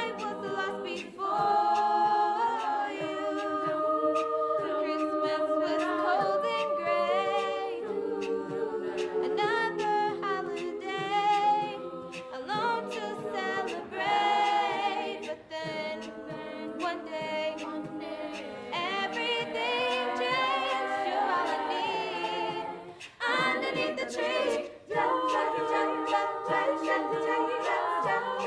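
A cappella vocal group singing a Christmas pop song in several-part harmony, no instruments, with a brief break about 23 seconds in.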